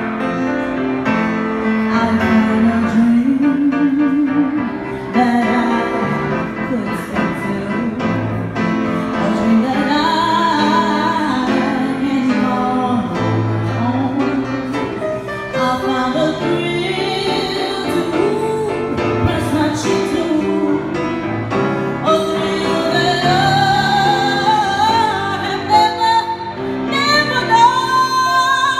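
A woman singing a slow soul ballad live into a handheld microphone over instrumental backing, with wavering vibrato on long held notes, climbing to a high belted passage near the end.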